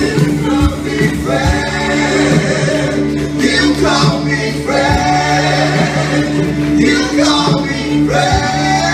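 Live church worship band and singers performing a gospel-style worship song: several voices singing together over guitars, keyboard and a steady beat.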